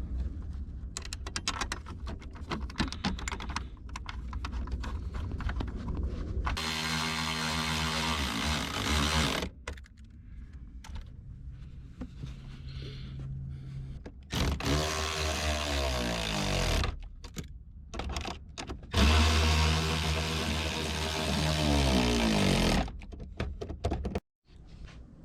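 Small power tool run in three bursts, its pitch shifting as it spins up and winds down, with clicks and knocks of handling and tools between the bursts.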